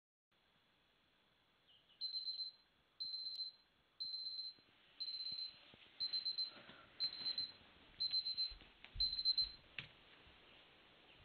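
Electronic alarm beeping: eight short, high-pitched beeps, one each second, that stop about two seconds before the end. Rustling and light knocks join in over the later beeps, ending in a sharp click.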